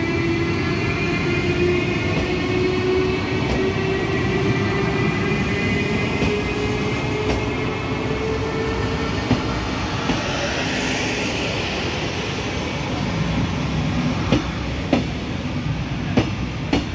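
SNCB HLE 18 electric locomotive accelerating out of the station, its traction equipment whining in several tones that rise slowly in pitch, under the rumble of passenger coaches rolling past. In the last few seconds the coach wheels click sharply several times over rail joints.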